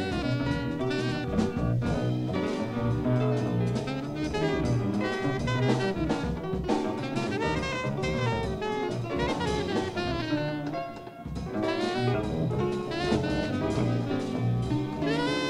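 Small jazz combo playing an up-tempo tune: saxophone and brass lines over a drum kit, with a brief lull about eleven seconds in.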